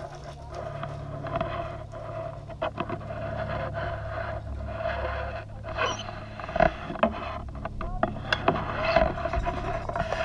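Scraping and rustling with scattered sharp clicks and knocks, the strongest about two-thirds of the way in, over a steady hum.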